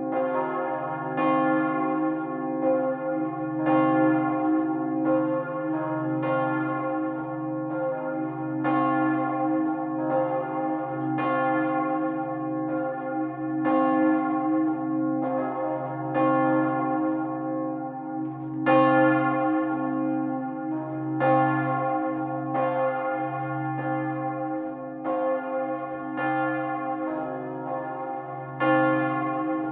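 Two bronze church bells swinging and ringing together, heard close up in the belfry: a 1,985 kg Paccard bell of 1885 sounding C and a 1,140 kg Wauthy bell of 1922 sounding E-flat. Their clappers strike about once a second, the strokes falling unevenly against each other over a steady hum.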